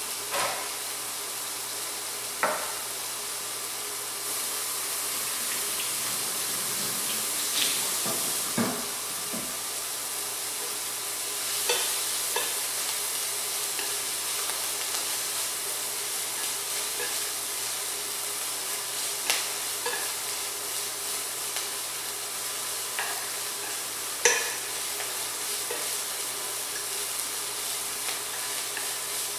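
Chopped parsley and dried tofu sizzling steadily as they stir-fry in oil, tossed with wooden chopsticks that now and then knock against the pan, the loudest knock late on.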